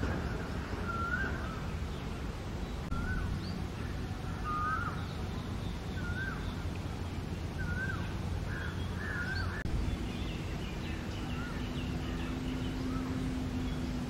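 A bird calls over and over in short, wavering notes, about one a second, over a steady low outdoor rumble. About ten seconds in, the calls grow fainter and sparser and a low steady hum comes in.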